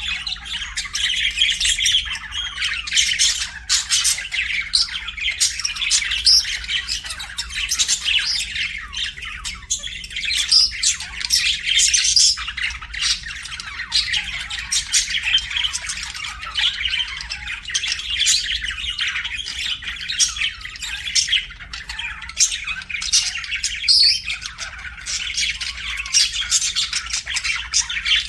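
Budgerigars chirping and squawking continuously in a dense, overlapping chatter of short, sharp calls, with no pauses.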